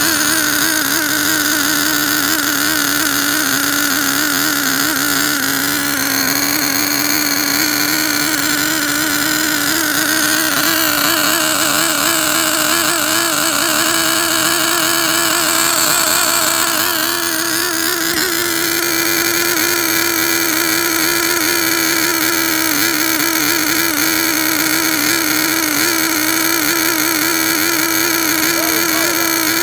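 OS Max R21 3.5 cc two-stroke nitro engine in an RC car running steadily during its break-in, on the very rich factory carburettor setting. Its pitch shifts slightly twice, about a third of the way in and again past the middle.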